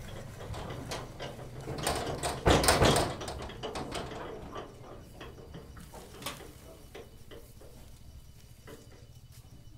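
A heavy sack of ginger dumped onto a truck's cargo bed with a loud thud about two and a half seconds in, amid scuffing and knocking as the sacks are loaded; a low hum runs under the first few seconds.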